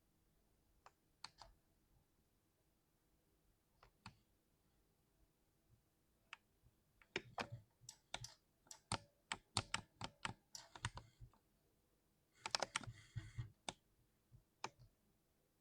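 Typing on a 60% keyboard: a few scattered keystrokes, then a quicker run of key presses about halfway through, and a short dense cluster of clacks a few seconds later.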